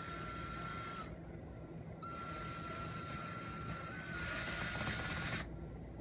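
Power drill-driver backing out a screw, its motor whining in spells: about a second, a one-second pause, then about three and a half seconds, the pitch stepping up slightly partway through.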